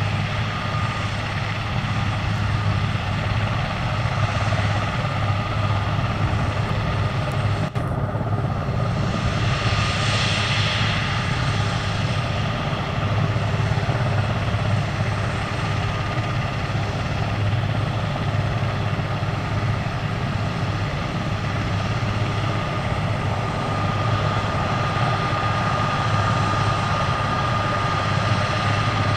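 Airbus AS532 AL Cougar helicopter running on the ground, its main and tail rotors turning: a steady low rotor drone with the high, even whine of its twin Turbomeca Makila turboshaft engines. A brief rush of hiss rises and fades about ten seconds in.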